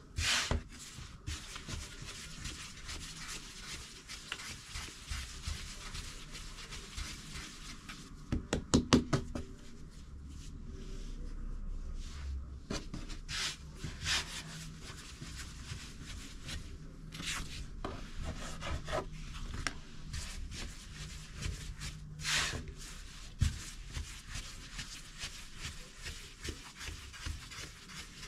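Hands working and shaping risen bread dough on a work surface: a steady rubbing and pressing, with scattered knocks and a quick run of taps about nine seconds in.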